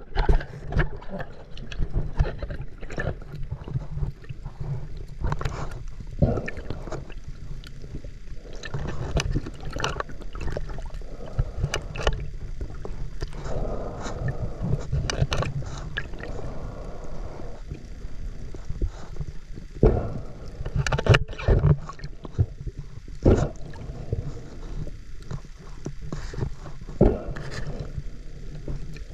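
Sounds aboard a small boat at sea: a steady low drone with irregular knocks and bumps and some water noise.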